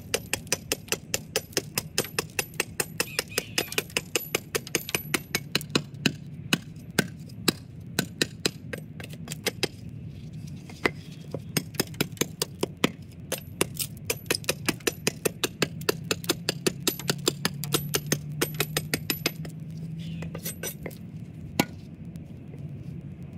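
Homemade straight machete chopping into a stick of wood held upright on a chopping block: a fast run of short, sharp strikes, about four a second, each with a slight metallic ring. The strikes thin out near the end and stop.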